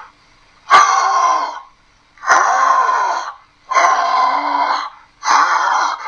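Allosaurus roar sound effects made with a person's voice through an empty paper towel tube, unedited: four calls of about a second each, each starting suddenly, with short gaps between.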